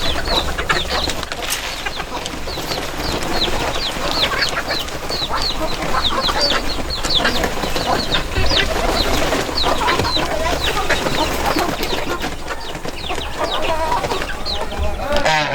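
Village chickens: many short, high, falling peeps, typical of chicks, over lower hen clucking, with no let-up.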